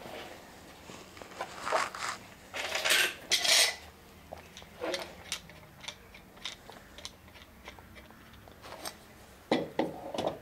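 Metal F-clamps and bar clamps being handled and tightened onto a wooden plank: a string of clinks, clicks and rattles, with louder bursts about three seconds in and again near the end.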